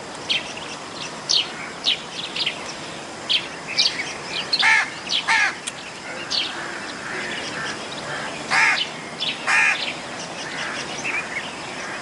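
Birds calling: many short, high chirps over a steady hiss, with a few louder, harsher calls in the middle and near the end.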